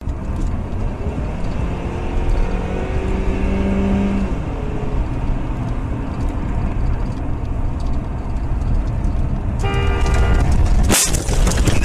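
Steady road and engine rumble of a car driving, with a car horn sounding around three seconds in and again just before ten seconds. A sharp bang comes about eleven seconds in.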